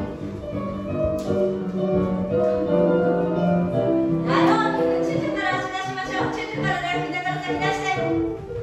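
Ballet class music playing, with layered, held melodic notes.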